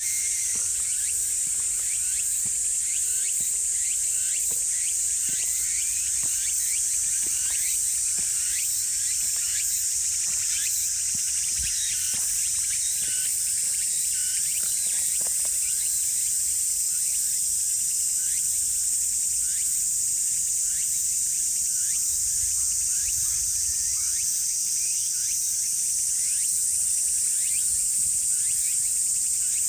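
Steady, high-pitched chorus of insects droning without a break, with many short chirps scattered over it.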